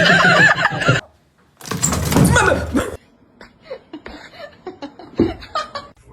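People laughing in short bursts, broken up by abrupt cuts between clips, then softer short vocal sounds.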